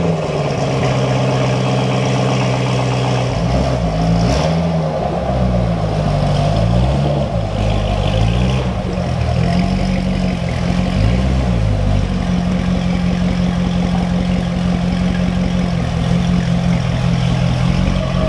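C6 Corvette Grand Sport's 6.2-litre LS3 V8 running at low revs through its quad exhaust as the car creeps backward. The engine speed rises and falls several times from about three to eleven seconds in, then settles to a steady idle.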